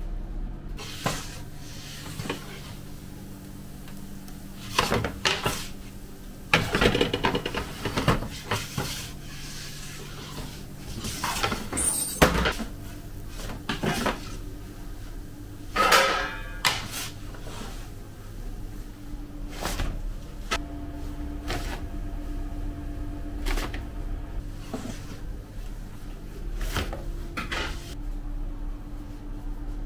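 Commercial kitchen prep: scattered knocks, bangs and clatter of doors, containers and utensils being handled, over a steady low hum.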